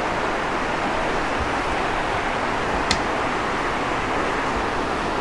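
Steady hiss of rain, with one light tap about three seconds in.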